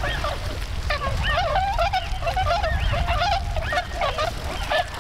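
A flock of Bewick's swans calling continuously, many overlapping calls that bend up and down in pitch.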